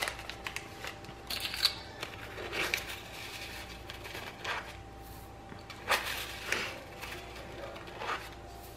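Faint rustling and light taps, scattered a few seconds apart, as black sesame seeds are scooped from a plastic bag with a measuring spoon and poured into a glass bowl.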